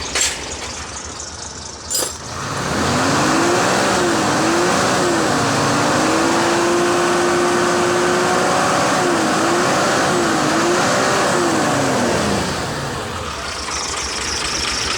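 Isuzu 6HK1 six-cylinder diesel engine revved up from idle, held at high revs for several seconds with a couple of brief dips, then let back down to idle. Two sharp clicks come just before the rev.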